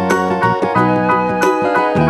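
Instrumental background music: steady pitched melody notes over a light, regular percussive beat.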